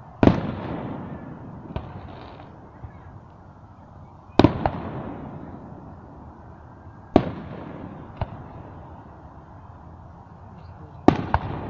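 Aerial firework shells bursting: four loud booms about three to four seconds apart, each followed by a long rolling echo that dies away, with a few smaller cracks between them.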